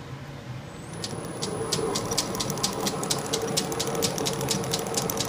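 Wadkin pattern lathe switched on about a second in, spinning a Jacob's chuck on its new taper arbor: a steady high whine with a regular ticking that speeds up as the spindle comes up to speed, settling at about five ticks a second.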